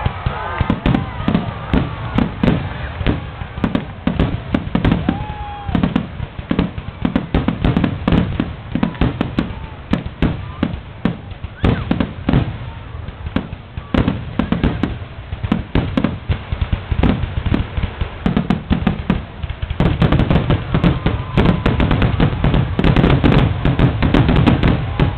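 Aerial fireworks shells bursting in quick, irregular succession, sharp bang after bang. About twenty seconds in, the bursts thicken into a dense, louder barrage.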